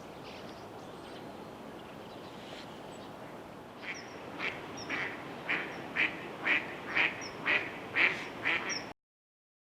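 A duck quacking in a run of about ten quacks, roughly two a second, over a steady background hiss; the sound cuts off abruptly near the end.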